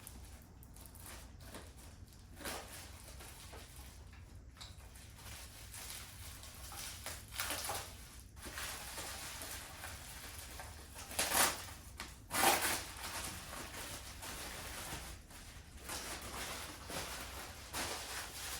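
Rustling and sliding handling noises, the kind made by packing material and parts being unpacked, with two louder swishes about eleven and twelve and a half seconds in, over a low steady hum.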